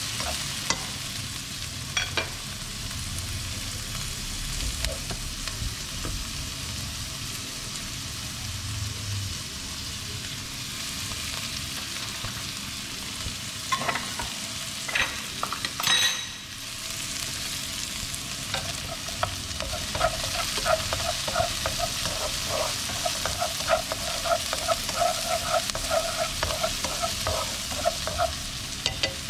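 Diced onion and shallots sizzling in oil in a nonstick wok while they are fried until fragrant, stirred with wooden chopsticks that tap and scrape against the pan. A louder knock comes about halfway, and the taps come quick and close together through the second half.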